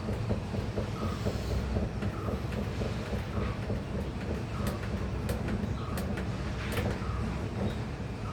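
Washing machine drum spinning fast on its spin cycle: a steady rumble with a quick, even clatter running through it.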